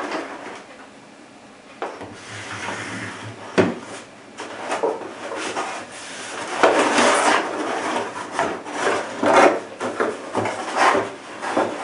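Cardboard box and its fitted cardboard insert scraping and rubbing together as the insert is handled and lifted out, in a run of irregular scrapes that grow louder in the second half.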